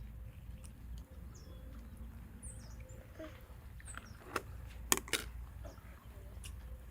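Quiet outdoor ambience: a steady low rumble, a few faint, short, high bird chirps, and three sharp clicks between about four and five seconds in.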